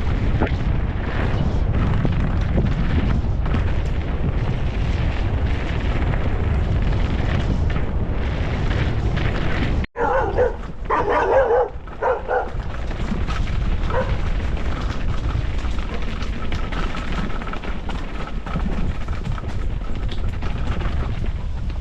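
Enduro motorcycle riding a dirt track, engine and wind making a loud, steady rumble with scattered knocks from the rough ground. After a sudden break about ten seconds in, a dog barks several times over a quieter rumble.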